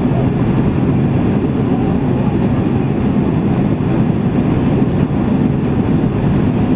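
Loud, steady low rumble inside the cabin of a Boeing 767-300ER airliner, the mixed noise of its engines and the airflow around it.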